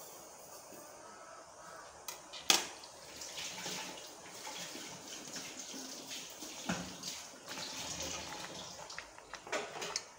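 Water boiling and sloshing in an enamel pot as cabbage leaves are put in to blanch, with a sharp knock about two and a half seconds in and a few smaller knocks near the end.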